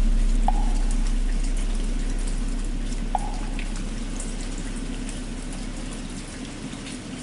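The long ringing tail of a deep bell struck just before, fading steadily over a steady patter of rain. Two single drip-like ticks come through, about half a second in and about three seconds in.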